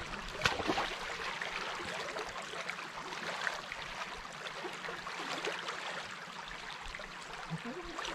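Water rushing steadily through the breach in a beaver dam, with a brief sharp knock about half a second in.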